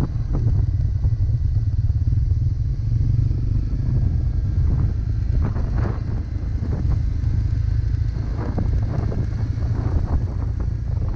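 Single-cylinder Honda dirt bike engine running as the bike rides along, heard as a steady low rumble.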